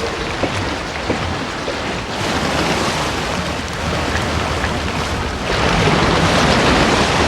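Steady wash of ocean water noise, a broad hiss with no whale call in it, growing louder about two seconds in and again past the five-second mark.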